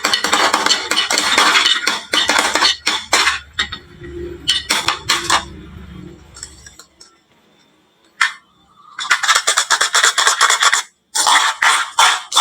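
Marbles rolling and clattering down a wooden HABA marble run: dense bursts of rapid clicking and rattling, with a brief lull around the middle before another long run of clatter and a few separate clicks near the end.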